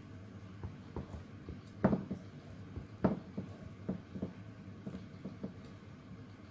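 Scattered soft taps and knocks of a silicone spatula against a ceramic plate as a slice of chocolate cake is cut and pried loose. The two loudest come about two and three seconds in, over a faint steady hum.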